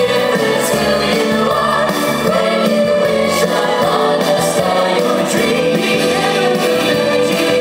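Music with a choir singing, held notes over a steady accompaniment.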